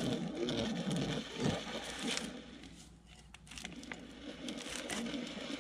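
Metal drive chain links clicking and scraping as a new chain, hooked to the old one, is worked around the sprocket by hand.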